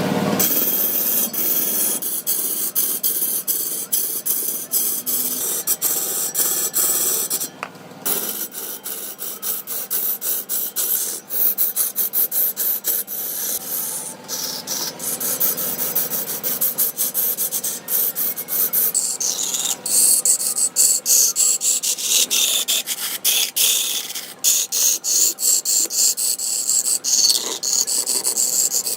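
Hand tool rasping or scraping redwood in rapid, repeated strokes, several a second, with a brighter, hissier stretch past the middle.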